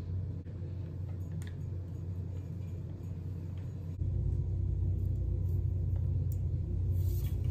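A steady low hum that steps up louder about halfway through, with a few faint light ticks of a bicycle's metal gear cable being handled and routed.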